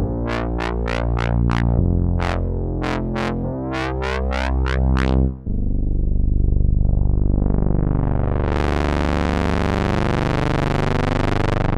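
Nord Wave 2 synthesizer playing two patches. First comes a plucked patch with quick, bright notes over a changing low bass line. This stops suddenly about halfway through and gives way to a sustained pad chord that turns much brighter about three seconds later.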